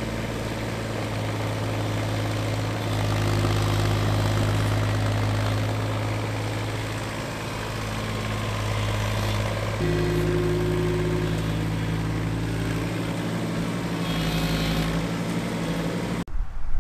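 Case CX17C mini-excavator's diesel engine running steadily while it digs, its note shifting about three and ten seconds in as the boom and bucket work. It cuts off suddenly just before the end.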